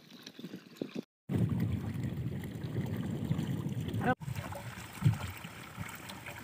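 Water gushing from an irrigation pipe into a cement tank, a steady rush. About a second in it turns much louder and deeper for some three seconds, then drops back to a quieter rush.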